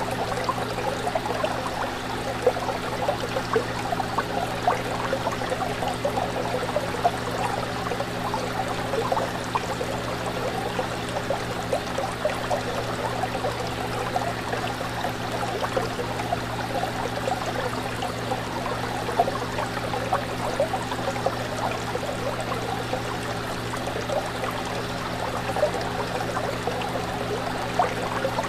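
Fish tank water trickling and bubbling without a break, over a steady low hum.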